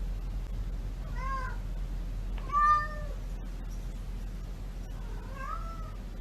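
A cat meowing three times, each meow rising and then falling in pitch, the middle one the loudest, over a steady low hum.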